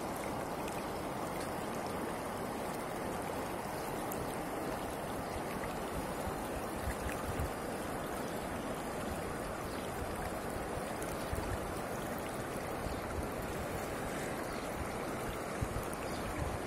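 A river flowing steadily over a shallow, stony bed.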